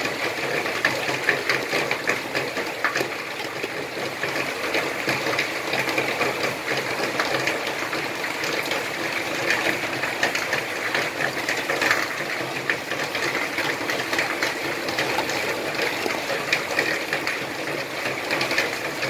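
Coconut cream simmering in a metal pot, bubbling with a steady fine crackle as it reduces to the stage where its oil separates, for Thai green curry.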